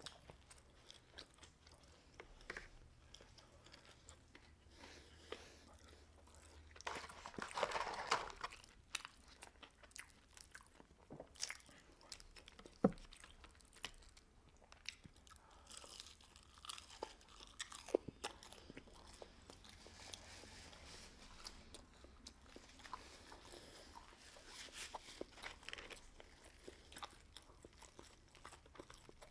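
Close-up chewing and crunching of fried Chick-fil-A food, faint, with scattered crisp bites and a louder spell of chewing about seven to eight seconds in.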